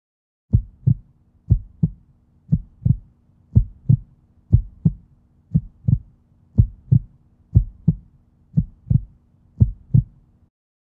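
Heartbeat sound effect: a steady lub-dub double thump about once a second, ten beats over a faint low hum, starting about half a second in and cutting off just before the end.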